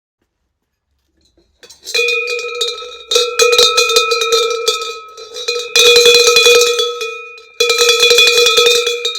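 Handmade long bulged cowbell (campanaccio lungo abbombato) shaken so its clapper clanks rapidly inside it, ringing at one steady pitch. It starts after a short silence, about two seconds in, and is shaken in several loud bouts.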